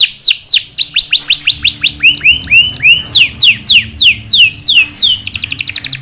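Domestic canary singing: a quick series of high whistles sliding downward, about five a second, a few arched rising-and-falling notes near the middle, then a very fast trill (the long 'roll') near the end.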